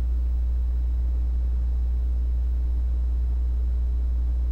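Steady low-pitched hum with a faint higher tone above it, unchanging throughout and with nothing else over it.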